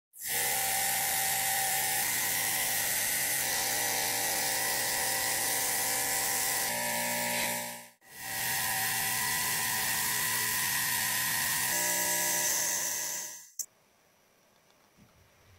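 Paint sprayer running: a dense, steady hiss with a faint whine, broken by a short dip about halfway, then cut off with a click near the end.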